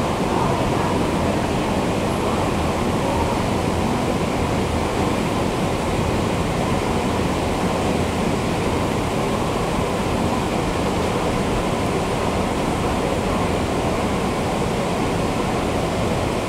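Long subway escalator running: a steady mechanical rumble and hiss from the moving steps and drive, with a faint steady hum.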